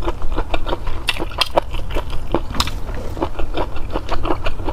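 Close-miked chewing of boneless chicken feet in sauce: a quick, irregular run of wet mouth clicks and smacks, with a few sharper ones in the middle.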